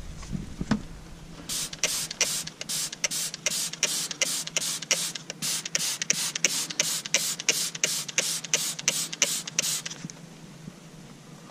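Trigger-spray bottle of Kyukyutto foaming dish detergent squeezed over and over, about three short hissing sprays a second, sending foam onto oily engine parts. The spraying starts about a second and a half in and stops about ten seconds in.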